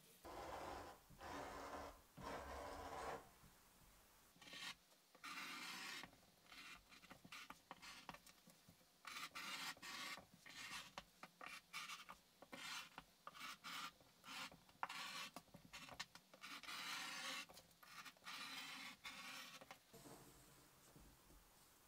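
Faint dry rasping and rubbing strokes of a paper pattern and fabric being handled and slid on a worktable. A rotary cutter cuts through the fabric around the middle, and a marker pen scratches along the pattern edge near the end.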